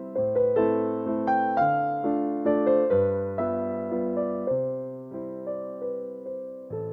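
Background music: a gentle keyboard melody, each note struck and fading, over low bass notes that change every second or so.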